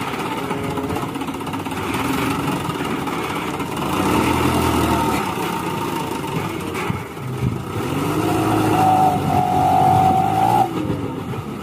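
Engine of a loaded Isuzu ELF dump truck running as the truck moves off slowly. Its pitch rises and falls in the last few seconds, with a steady higher whine over it.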